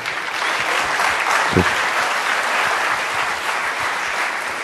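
Audience applauding: dense, steady clapping from a large crowd at the end of a talk.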